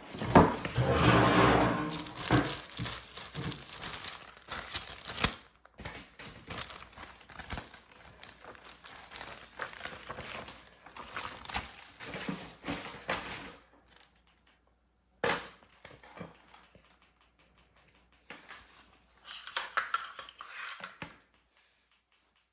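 Packaging and equipment being handled: crinkling and rustling with many irregular clicks and knocks, loudest in the first few seconds, then thinning to occasional knocks, including one sharp knock about two thirds of the way through and a brief burst of rustling near the end.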